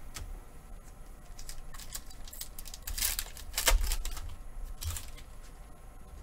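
A foil Pokémon booster pack wrapper is being torn open and crinkled, with the cards rustling against each other. There are sharp crinkles about three seconds in and again near four and five seconds.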